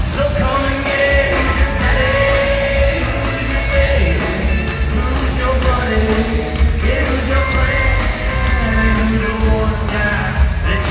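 Live country band playing in an arena: drums keep a steady beat of about two a second under guitars and keys, with a male lead vocal, heard through the hall's echo from the seats.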